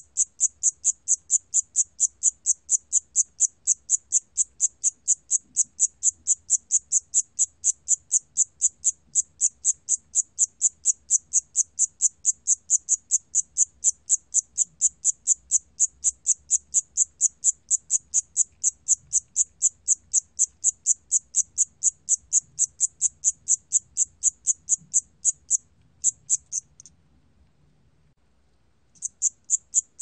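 Siamese cricket (샴귀뚜라미) singing at 28 °C: an even run of high, sharp chirps at about four a second. The song breaks off near the end and starts again about two seconds later.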